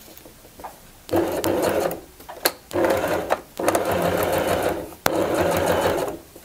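Electric household sewing machine stitching a zipper into fabric in four short runs of about a second each, with brief pauses between them and a sharp click before two of the runs.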